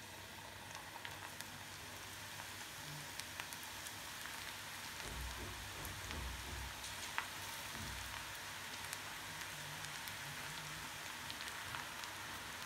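Onion pakoda batter deep-frying in hot oil in a kadai: a steady crackling sizzle with scattered small pops, slowly growing a little louder.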